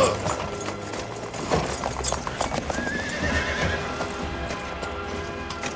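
Hooves of a galloping stagecoach team clattering, with a horse whinnying right at the start, over background film music.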